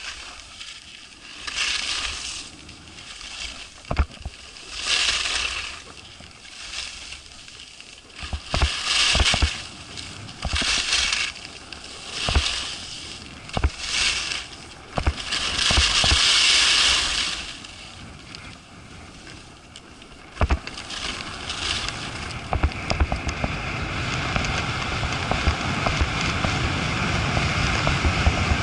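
Skis turning on packed snow: a scraping swish with each turn, about one every second and a half, with a few sharp knocks. Near the end the turns stop and a steady rush of wind over the microphone builds as the skier runs straight downhill.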